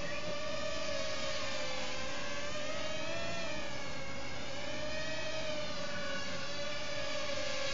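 Reely MC 120 micro quadcopter's motors and propellers whining steadily in flight, the pitch wavering gently up and down.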